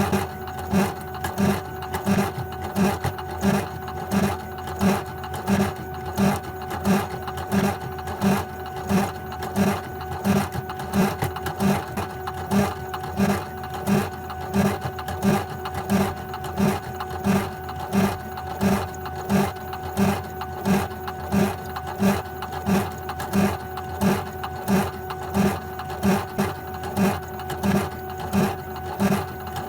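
CNC embroidery machine built from an old sewing machine on a CNC XY table, stitching in an even rhythm of about three stitches every two seconds, with a steady machine hum underneath.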